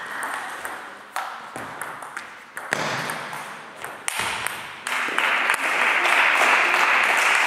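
Table tennis rally: a handful of sharp clicks as the ball is struck by the rackets and bounces on the table. The point ends, and from about five seconds in spectators applaud loudly.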